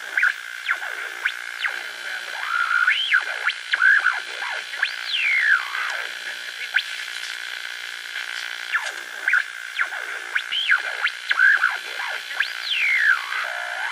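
Electronic music with no beat: whistling tones that swoop up and down in pitch over a steady high drone.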